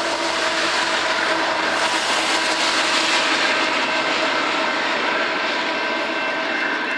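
Canadian Pacific GE AC4400CW diesel locomotive, the rear-end remote unit of a coal train, running as it moves away: a steady rushing noise with low engine tones that fade out after about a second and a half, and faint higher tones near the end.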